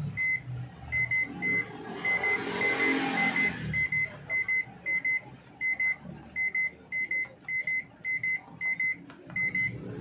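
Whirlpool microwave oven's control-panel beeper giving a short high beep with each key press, many in a row and often two in quick succession. The beeps show that the rebuilt keypad is registering every button.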